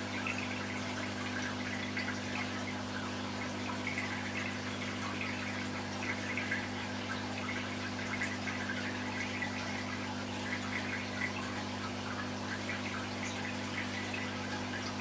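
Aquarium equipment running, a steady low hum with water trickling and bubbling over it, small crackles of splashing scattered throughout.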